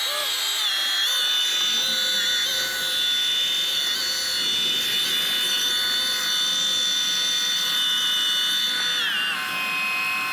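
Fishing reel whining steadily under the load of a hooked fish, with a high machine-like tone that steps down in pitch about nine seconds in.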